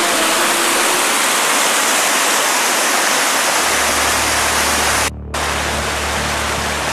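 Fast mountain stream rushing and tumbling over rocks in a small cascade, a loud steady hiss of water. A deeper rumble joins about three and a half seconds in, and the sound cuts out for a split second about five seconds in.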